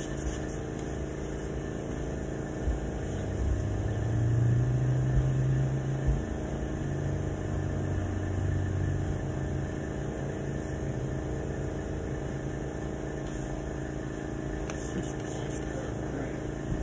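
Steady mechanical hum with a low drone that swells about four seconds in and fades a few seconds later. Near the end comes a quick run of spray-bottle squirts as water is sprayed onto the window glass.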